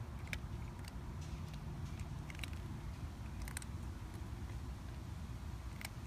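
Cat eating dry kibble from a plastic bowl: scattered sharp crunches about once a second, over a steady low rumble.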